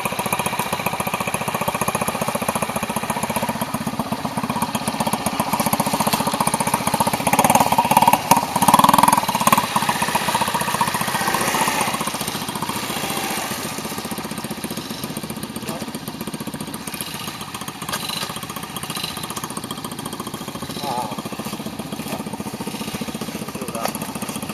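Small motorcycle engine running steadily, a little louder for a few seconds near the middle.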